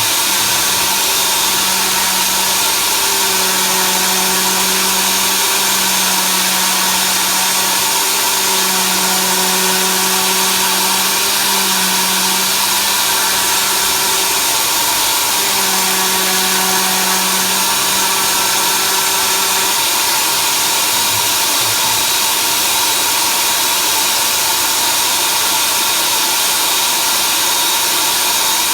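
CNC machine running under program control: a loud, steady whir throughout, with the stepper motors humming in short on-and-off stretches as the axes move, stopping about twenty seconds in.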